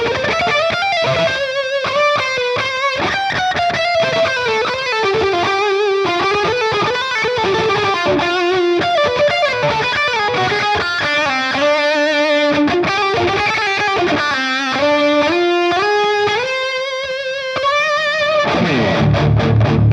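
Electric guitar played through an Ibanez TS9 Tube Screamer overdrive pedal, tested after a repair, in an overdriven tone. It plays a melodic lead line of single sustained notes with bends and vibrato. A lower note rings near the end.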